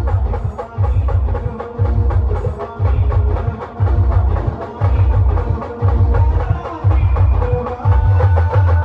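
Brass band playing: horns hold the tune over heavy, booming drum beats that land about once a second.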